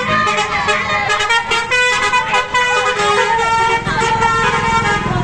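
Bus 'telolet' horn, a multi-trumpet musical air horn, playing a quick tune of stepped chords. A low rumble comes up near the end.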